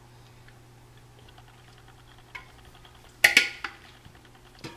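A sharp clink of kitchenware, with a short ring, about three seconds in, and smaller knocks before and after it as the plate of biryani is handled by the stove. Under it, faint rapid ticking over a low steady hum.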